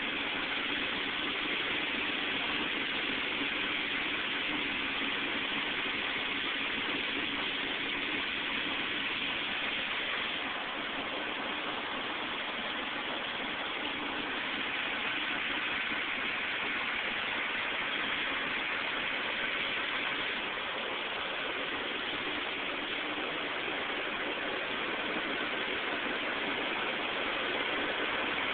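Steady street traffic and engine noise: an even hiss with a faint low hum, picked up through a cell phone microphone.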